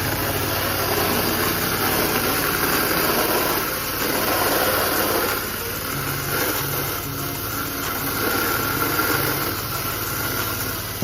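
Pressure washer engine running steadily under the hiss of its water spray, which grows and eases as the siding is rinsed.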